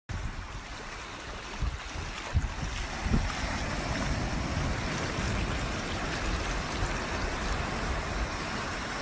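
Ocean surf washing up on a beach, a steady rushing noise, with wind buffeting the microphone in a few low thumps during the first three seconds.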